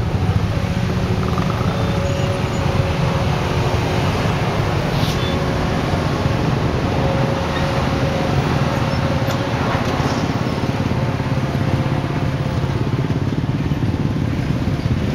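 Steady city road-traffic noise, a continuous low rumble of passing engines with a faint hum running through it.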